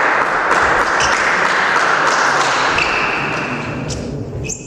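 Light pings of a table tennis ball, a few taps against a steady loud background noise of the hall that fades near the end.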